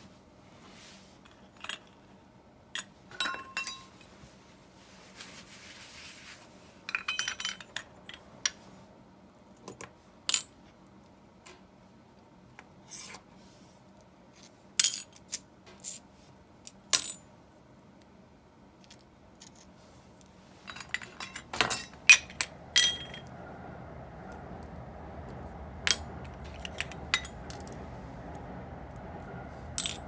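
Small metal parts of a disassembled Abu Garcia Ambassadeur 1500C baitcasting reel clinking and clicking against each other and against metal parts dishes as they are handled, in scattered sharp taps, some ringing briefly. About two-thirds of the way through, a steady low hiss comes in beneath them.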